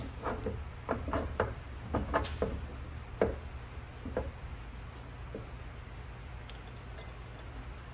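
Light metallic clicks and clinks as a new Land Rover Series III half shaft is pushed by hand into its drive flange, about ten short ticks that thin out after about four seconds, over a steady low hum.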